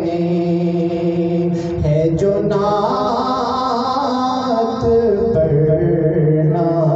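A man singing a naat into a microphone, holding long, drawn-out notes that slide from pitch to pitch.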